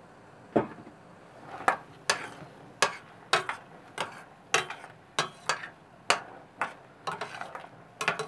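A metal spoon knocks against the side of a stainless steel pot while stirring marinade with oyster mushrooms, about two sharp clinks a second at an uneven pace, with a quick run of them near the end.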